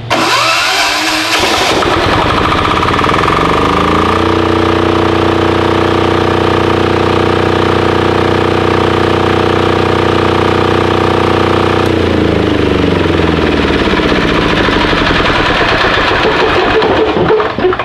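Titan 7500 diesel generator starting up and coming up to a steady running speed over the first few seconds. About twelve seconds in its pitch drops and wavers, and it stops just before the end.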